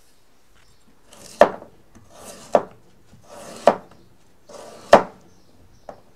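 A kitchen knife cutting through food on a cutting board: four slow strokes about a second apart, each a short rasp of the blade ending in a sharp knock on the board.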